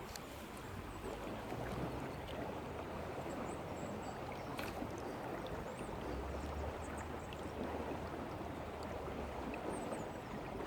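Steady rush of flowing river water, with a low hum partway through and faint high chirps.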